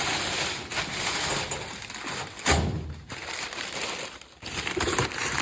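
Kraft paper being crumpled and stuffed down into a cardboard box as packing, with a sharp thud about two and a half seconds in.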